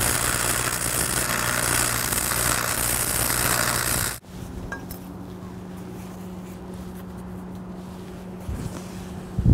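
Stick-welding arc from a Lincoln 225 AC welder, a steady crackling hiss with a low buzz under it, lasting about four seconds and cutting off suddenly as the arc is broken. A quieter steady low hum continues afterwards.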